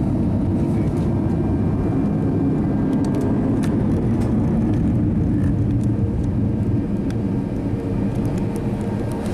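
Steady low jet-engine rumble heard from inside an Airbus A321's cabin while it waits to depart, easing off slightly near the end.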